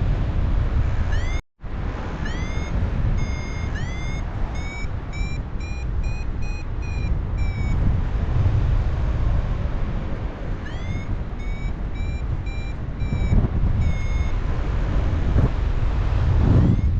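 Paragliding variometer beeping in runs of short, high beeps that quicken, with the tone signalling a climb in lift. Heavy wind rushes over the microphone in flight, and the audio cuts out briefly about a second and a half in.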